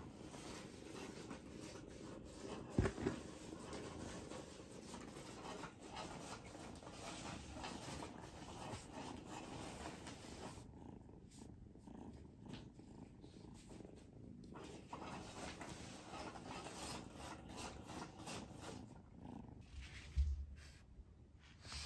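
White kitten purring steadily while being stroked, with two thumps, one about three seconds in and one near the end.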